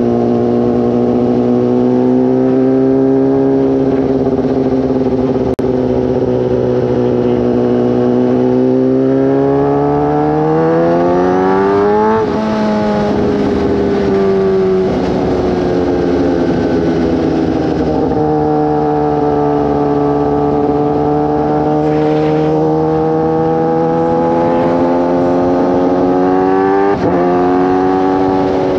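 Kawasaki ZX-10R's inline-four engine running at steady road speed. About ten seconds in, its pitch climbs as it speeds up, then drops and holds steady. Near the end there is a sudden jump in pitch.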